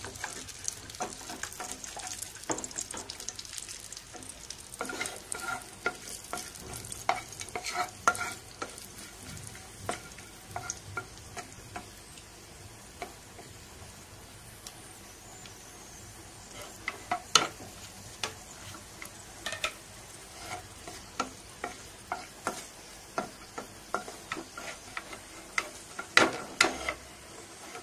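Cashew nuts frying in ghee in a nonstick pan, a steady sizzle, while a wooden spatula stirs them with irregular scrapes and taps against the pan.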